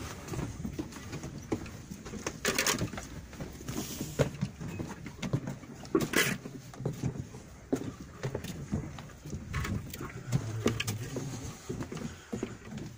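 Footsteps and scuffing on rock and grit in a narrow mine tunnel, with irregular knocks and a few short, louder scrapes as boots and clothing rub against the rock.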